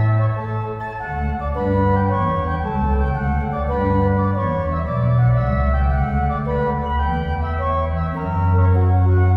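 Steinmeyer pipe organ playing a chorale prelude: sustained chords with moving upper voices over deep held bass notes.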